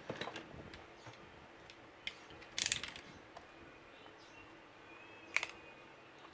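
Scattered plastic clicks and snaps as the keyboard of a Lenovo Ideapad 110 laptop is pried up from its case. The loudest is a quick run of snaps about two and a half seconds in, followed by a single click a few seconds later.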